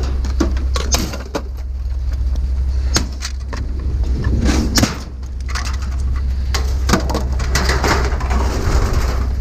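Steady rain noise with a low rumble, broken by scattered knocks and clanks of things being handled.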